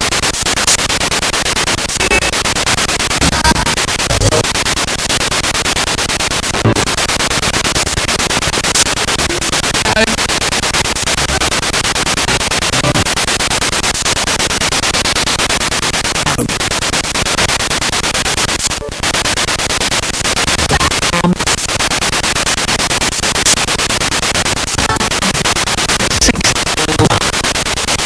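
Spirit box radio sweeping through stations: continuous loud static, broken by short dropouts and split-second scraps of broadcast voices and tones.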